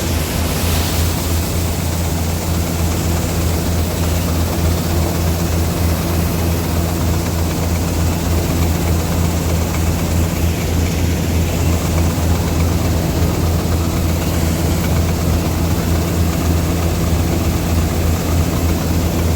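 Diesel tractor engine running steadily with a constant low hum, with harvester machinery working during soybean harvesting.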